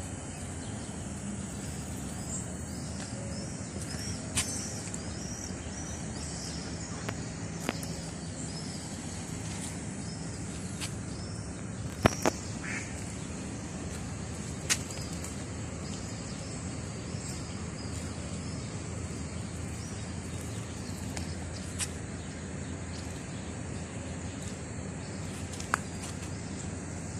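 Ducks on a pond quacking now and then over a steady outdoor hum, with a run of high bird chirps in the first several seconds. About half a dozen sharp clicks stand out, the loudest about twelve seconds in.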